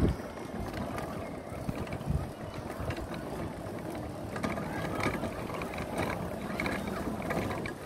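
Go-kart rolling along, with a busy rattle of small mechanical clicks and ticks over a steady rumble.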